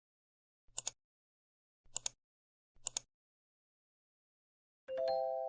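Three short double clicks about a second apart, then near the end a bell-like chime of several notes struck together that rings on and slowly fades.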